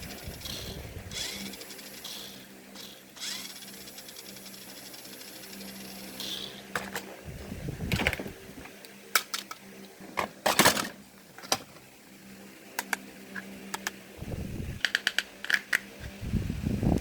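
Workbench repair noises: a steady low hum, with a high whine that comes and goes and stops about six seconds in. Then scattered sharp clicks and knocks, with a quick run of clicks near the end.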